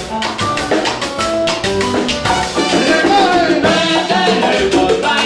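Salsa music: a band playing with steady percussion and bass, and a wavering lead melody that comes in louder about two and a half seconds in.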